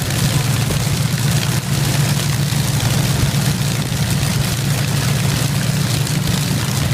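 Rolls-Royce Merlin V12 aero engine running at a steady, unchanging speed with a deep drone.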